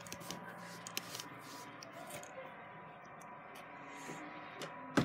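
Faint rustling and small scattered clicks of a handheld phone being moved about, with one louder knock near the end.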